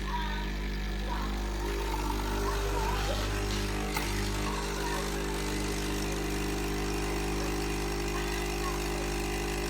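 Capsule espresso machine's vibratory pump running with a steady low hum while it brews.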